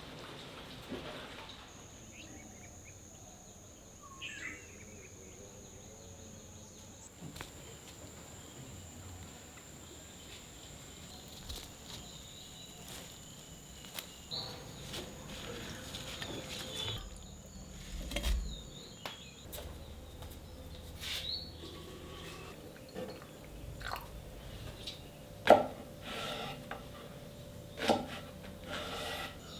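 Quiet rural background with a steady high-pitched whine through the first two-thirds, a few bird chirps and scattered small knocks and clicks.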